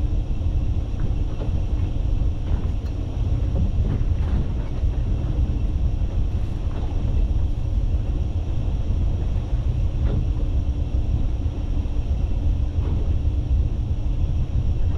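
Boat engine idling, a steady low rumble with a constant hum.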